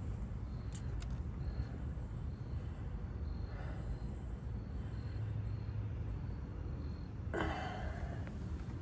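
Motor oil being poured from a quart bottle into a generator's oil fill, faint against a steady low rumble, with a brief rustling noise near the end.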